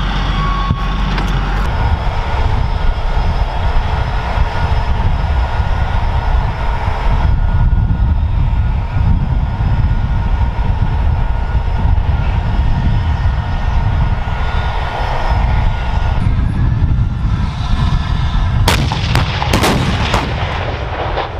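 Live-fire gunnery from M1 Abrams tanks: a loud, continuous rumble of gunfire and explosions, with a few sharp cracks near the end.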